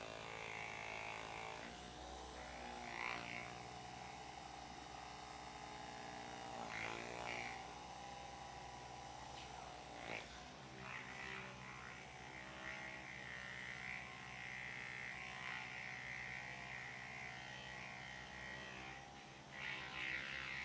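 Handheld electric massager buzzing steadily, its hum shifting in pitch about two seconds in and again about ten seconds in.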